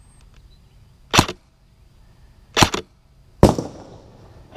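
Three sharp cracks of airsoft gunfire, spread over about two seconds; the last one rings on briefly.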